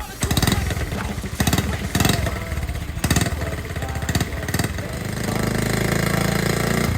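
1969 Honda Z50A's small four-stroke single-cylinder engine running. The throttle is blipped several times in the first three seconds or so, then the engine settles to a steadier idle.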